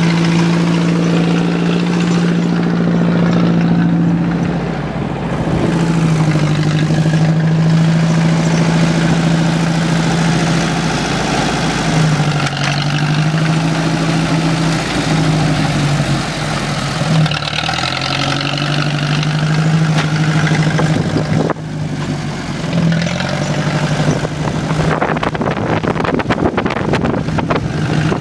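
John Deere tractor engine running steadily, its note dipping briefly several times as it takes load while driving onto the pool. A run of crackling near the end as the tyres crush the flattened pool.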